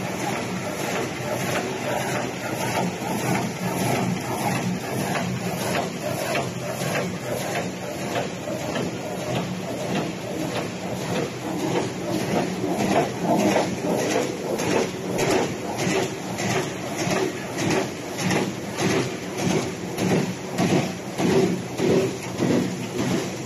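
Kraft-paper bubble mailer envelope making machine running, a steady mechanical clatter; about halfway through it settles into an even beat of roughly two strokes a second.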